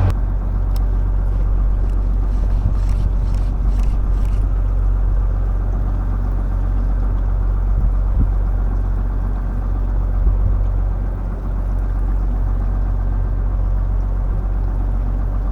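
Steady low drone of a fishing boat's engine or generator running, with a faint hiss of wind and water over it.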